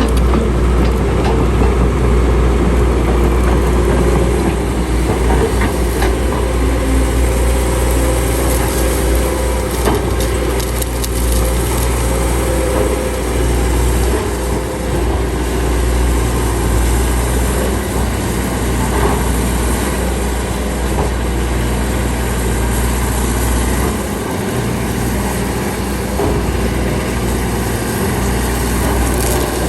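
Large diesel engine of heavy earthmoving machinery running steadily under work, with scattered knocks and clanks over the drone.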